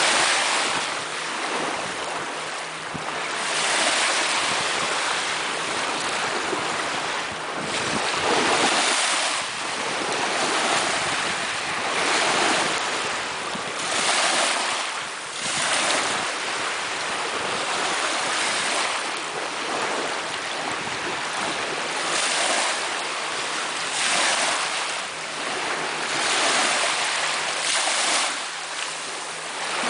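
Sea waves washing ashore, a continuous surf that swells and ebbs every two seconds or so.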